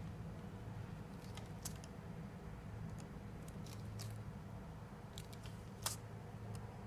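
Silicone grip tape being pulled off its strip and wrapped around a hockey stick shaft, giving scattered short sticky clicks and crackles, the sharpest about six seconds in, over a steady low hum.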